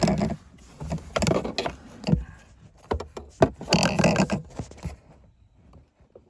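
Pry tool scraping and clicking against the shifter linkage while working a plastic clip loose, in irregular bursts that stop about five seconds in.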